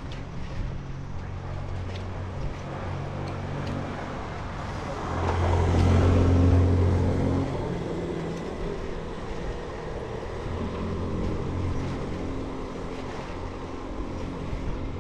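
Street traffic noise heard from a moving bicycle rolling over brick paving, with a motor scooter's small engine passing close about five seconds in. The scooter is the loudest thing for a couple of seconds, then fades.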